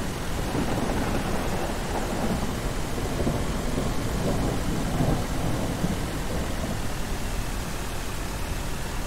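Steady hiss of rain with low rolling rumbles of thunder, swelling about a second in and again around four to five seconds.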